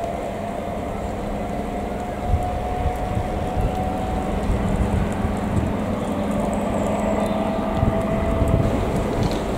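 Class 43 HST diesel power car running as the train moves away along the line: a steady engine hum with a held whine over a low rumble, and a few knocks from the wheels.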